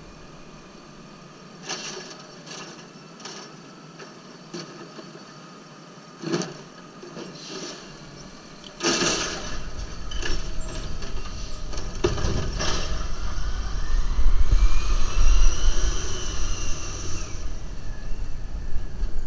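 Natural-gas WM automated side-loader garbage truck emptying a recycling cart, with scattered knocks and clanks of the cart and lift arm. About nine seconds in it gets louder, with a deep engine rumble and more clanks, and then a whine that rises, holds and falls as the truck pulls away.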